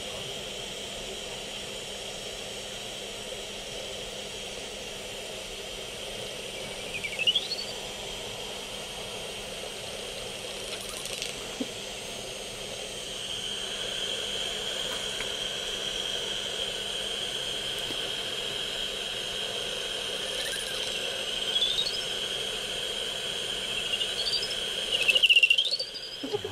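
Lesser horseshoe bats' echolocation calls heard through a bat detector: a steady high hiss with a few short rising chirps, louder and closer together near the end as bats fly close.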